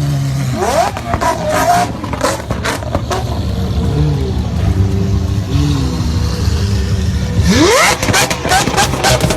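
A vehicle engine running loud and revving, its pitch climbing steeply twice: once about half a second in and again near the end, over a steady low rumble.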